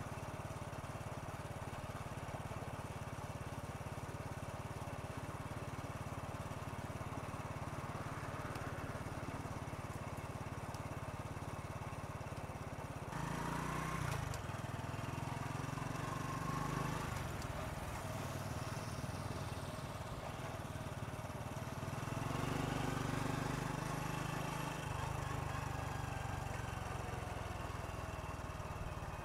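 Honda Super Cub's single-cylinder four-stroke engine running under way, its steady low note shifting twice along the ride.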